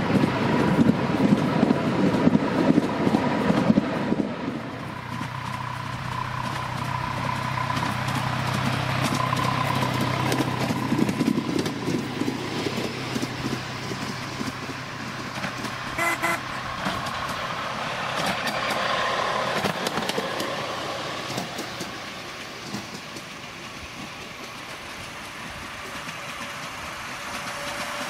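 Miniature railway train running along a raised track, with wheel noise on the rails and a faint steady whine. Loudest for the first few seconds, then quieter, fading and growing again near the end as the locomotive comes closer.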